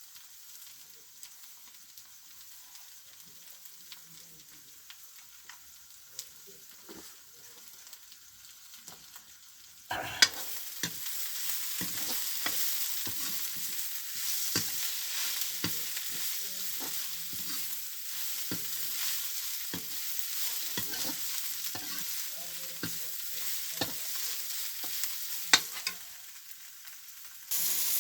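Food frying in hot oil in a pan, sizzling, with a spatula scraping and stirring it in short strokes. The sizzle is faint at first and jumps much louder about ten seconds in. It dips briefly near the end, then comes back.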